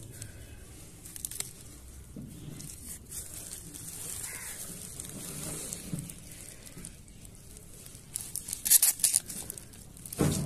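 Plastic wrap and bubble wrap crinkling and rustling as jars are handled and turned over in the packing. A louder run of crackles comes near the end.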